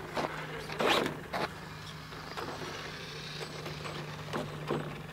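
Traxxas RC pickup truck driving off across asphalt, with a sharp burst of motor and tyre noise about a second in and a few shorter bursts after.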